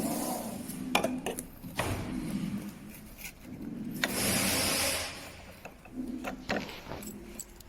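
Small parts being handled and fitted by hand: a series of separate clicks and knocks, with a short stretch of rustling hiss about four seconds in.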